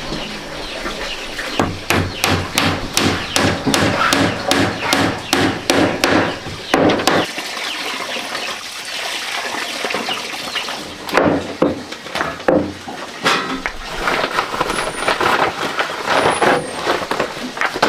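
Hammer blows on wood, sharp knocks about two to three a second, easing off about seven seconds in and starting again more sparsely a few seconds later.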